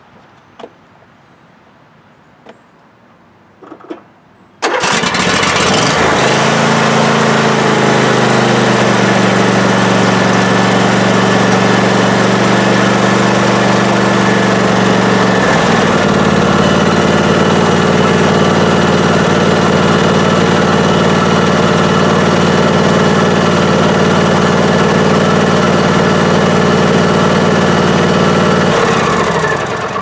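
John Deere D125 lawn tractor's 20 hp Briggs & Stratton V-twin engine starting on the key about five seconds in, now that the blown fuse has been replaced. It runs steadily and changes its engine note about halfway through, then shuts off just before the end. A few faint clicks come before the start.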